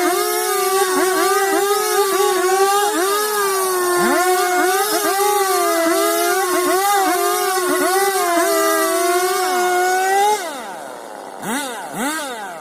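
Chainsaw running at high revs and cutting wood, its engine pitch dipping and recovering again and again as the chain bites under load. About ten seconds in, the throttle is let off and the revs fall, with one brief blip near the end.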